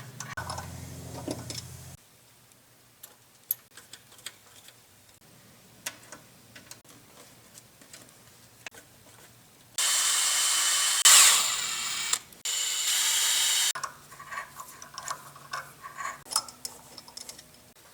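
Small clicks of hand-tool work on metal, then two loud bursts of a power tool running, each a second or two long, beginning about ten seconds in.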